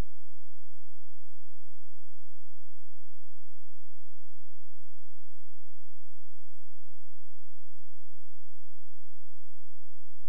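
A steady electrical hum of two low pitched tones over faint hiss, with brief low blips at irregular intervals.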